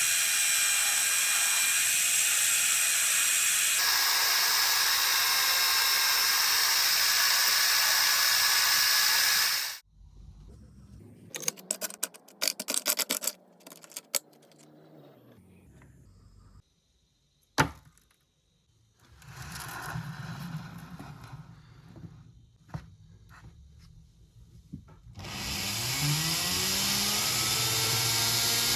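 A small power tool running steadily, then stopping about ten seconds in. Scattered clicks and one sharp click follow while it is off. Near the end it starts again, its pitch rising as it spins up, and then runs steadily.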